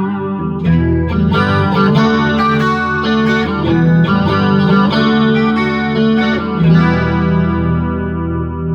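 Electric guitar played through a Marshall MG100HDFX amp head on its clean channel: chords strummed and left to ring, with a last strum near the end that fades out. The repaired amp is working properly.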